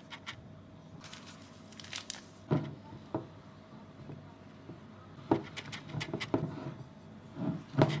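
Wire whisk stirring cocoa powder into thick cake batter in a bowl: irregular scraping and sharp clinks of the wire against the bowl's side. A faint steady hum runs beneath.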